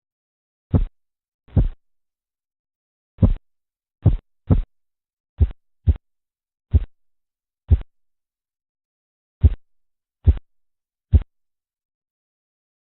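Korotkoff sounds through a stethoscope over an artery beneath a deflating blood pressure cuff: a run of short thumps at uneven intervals, about a dozen, that stop about 11 seconds in. The end of the sounds is the point read as the diastolic pressure.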